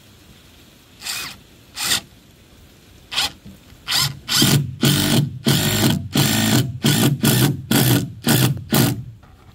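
A power drill run in short bursts, two spaced bursts first and then about a dozen in quick succession, while fastening mahogany floor decking.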